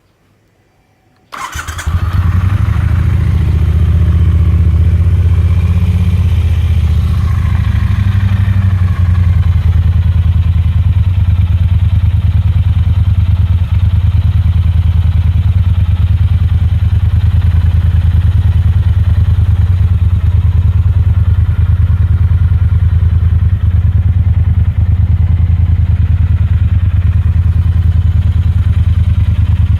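Triumph Bonneville T120's 1200 cc parallel-twin engine starting about a second in and running through Vance & Hines peashooter slip-on exhausts, briefly a little higher at first, then settling to a steady idle.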